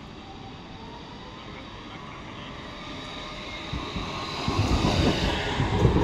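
A tram approaching on the street, its running noise growing louder and reaching a loud low rumble about four seconds in.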